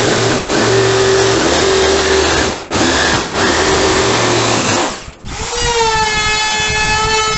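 Black & Decker jigsaw running, cutting plywood, with a few brief breaks, for about the first five seconds. Then a Makita trim router starts: a high whine that rises briefly as it spins up and then holds steady.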